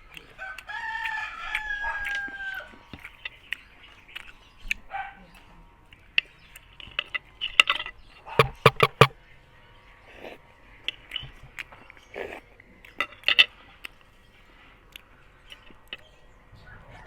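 A rooster crows once, starting about half a second in: one long call held for about two seconds and falling slightly at the end. Later come scattered sharp clicks and smacks of eating, in two clusters.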